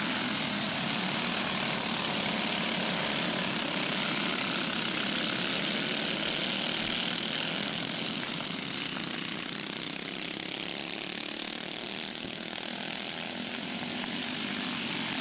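Several go-kart engines buzzing together as the pack races around the dirt track; the sound eases off in the second half and builds again near the end as the karts come back around.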